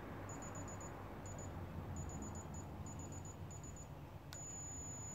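Meyoung non-contact forehead thermometer beeping while it scans: short high beeps in quick runs, then one long beep about four seconds in, the prolonged beep that signals the reading has been taken.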